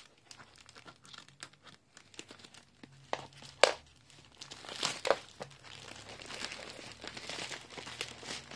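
Plastic mailing bag being cut with scissors and then pulled apart and crumpled by hand: scattered snips and rustles at first, one loud sharp crack a little past three seconds in, then steady crinkling through the second half.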